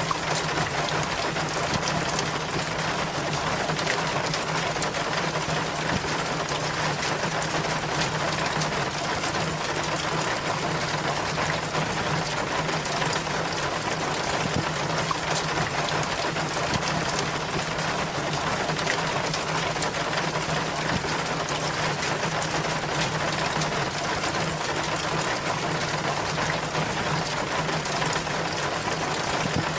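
Rainwater running down a rain chain: a steady splashing and trickling with many small drips.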